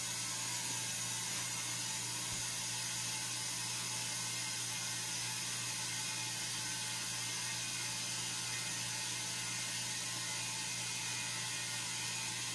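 Gobege 12V portable air compressor running steadily, a constant hum with air hissing through the inflator hose, filling a UTV tire to push its bead back onto the rim.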